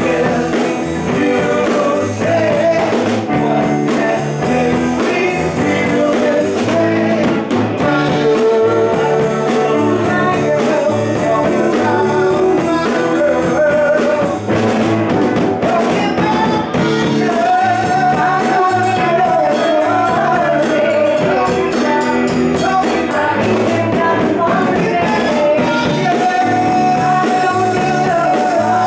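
Live band music: strummed guitars over a drum kit's steady beat, with a man singing at the microphone.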